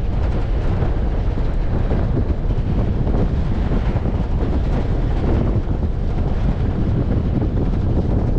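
Wind rushing and buffeting over the microphone from a moving vehicle, over the low rumble of the vehicle driving on a dirt road. Steady throughout.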